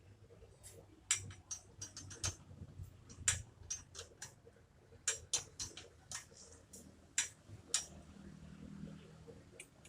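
Scattered sharp clicks and taps at an uneven pace, as hand tools work on a wheelchair, over a faint low hum.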